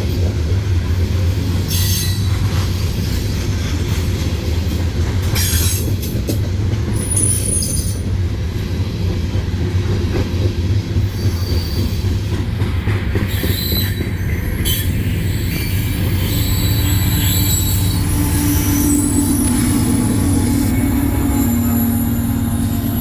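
Freight train cars rolling past with a steady low rumble of wheels on rail, and high-pitched wheel squeal that comes and goes.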